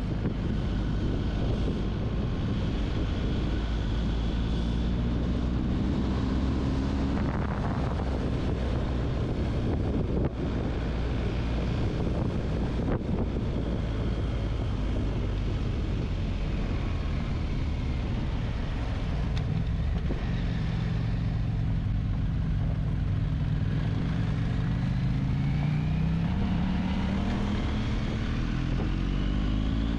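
Adventure motorcycle engine running under way, with wind noise. The engine note climbs as the bike accelerates, briefly a few seconds in and again steadily over the last ten seconds.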